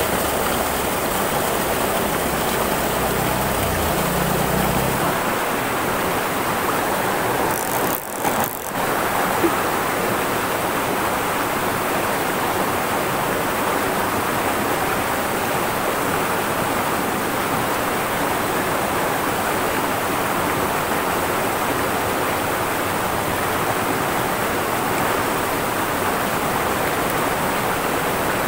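Steady rush of a shallow, rocky river flowing over stones, briefly dipping about eight seconds in.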